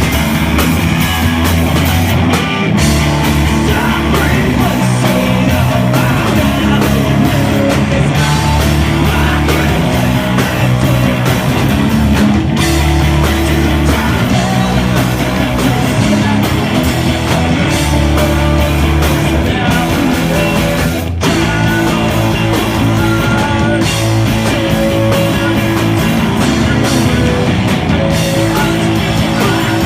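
A rock band playing loud and live, guitar-driven and without a break.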